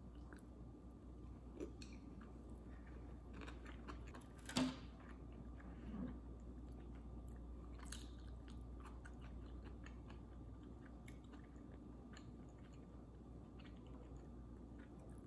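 Quiet chewing of sushi rolls, with small clicks and taps from wooden chopsticks. One sharper click comes about four and a half seconds in.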